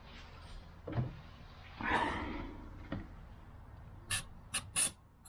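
Workshop handling noises: a knock, a short rushing noise about two seconds in, then several sharp clicks near the end, as parts and tools are handled during idle control valve cleaning.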